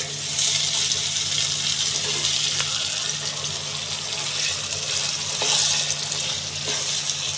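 Chicken keema sizzling in a nonstick kadai as it is stirred and scraped with a spatula, a steady frying hiss with a few light scrapes and a steady low hum underneath. It is being fried down (bhuna) now that its liquid has cooked off.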